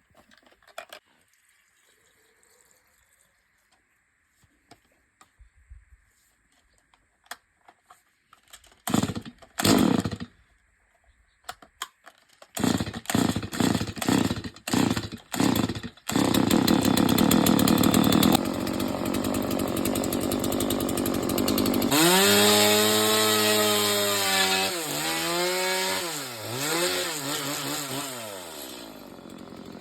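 Stihl chainsaw started up: after a few faint clicks come loud separate bursts as it is pulled and sputters. About 16 seconds in it catches and runs loud and steady, then revs high with the pitch dipping several times before it drops away near the end.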